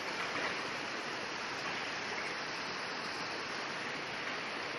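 Muddy floodwater rushing steadily over stones and debris down a landslide-scoured path: a continuous, even rush.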